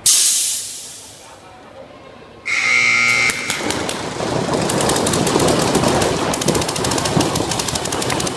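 A sudden loud rush of noise fades over about a second. A horn then sounds for about a second, and rapid paintball marker fire from several guns breaks out, many sharp pops a second, and keeps going.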